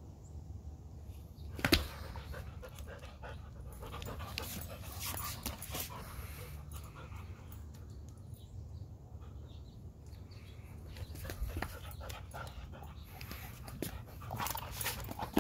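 Alaskan husky panting, with scattered short clicks and scuffs and one sharp knock about two seconds in.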